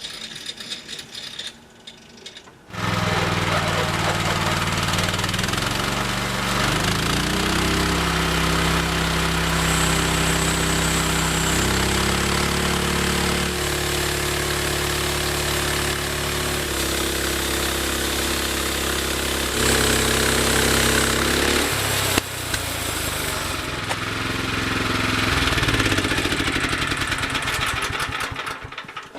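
Homemade band sawmill running, its engine starting abruptly about three seconds in and running loudly with its speed rising and falling several times, over a steady mechanical hiss.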